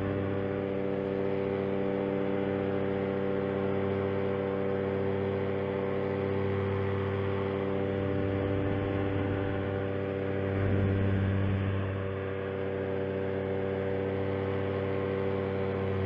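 Paramotor engine and propeller running steadily at climb power, an even drone with a slight swell about ten seconds in.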